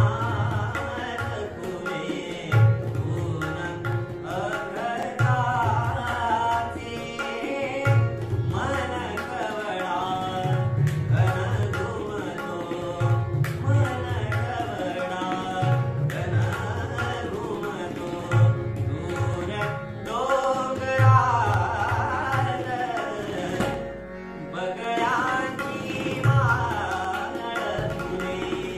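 A young male voice sings a Marathi song in light-classical style, with gliding, ornamented lines. A harmonium holds sustained chords beneath it, and a tabla keeps a steady rhythmic cycle with deep bass-drum strokes.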